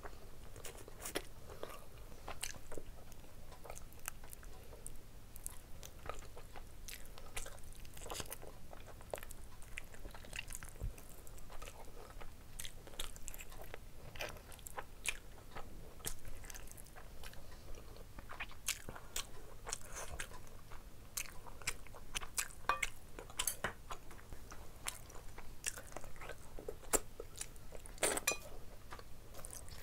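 A person eating curried chicken drumstick and rice by hand: biting and chewing, with many short, irregular mouth clicks and smacks.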